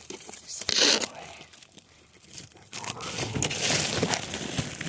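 Crinkling and rustling of material being handled: a short burst just before a second in, then a longer stretch of rustling and scraping from about three seconds in.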